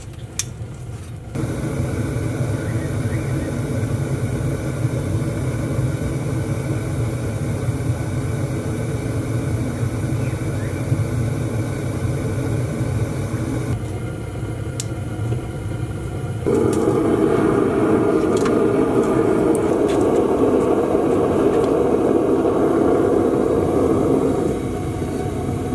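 A small backyard furnace firing, its burner running with a steady rushing noise over a low rumble. The level steps up and down a few times between shots.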